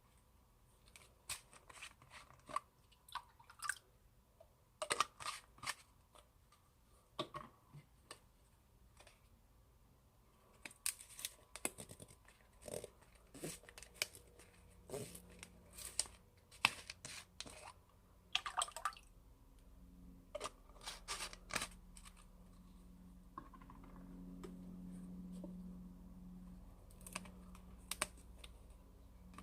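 Hands squeezing and poking old slime, giving irregular small sticky clicks, pops and crackles. A low steady hum comes in about two-thirds of the way through.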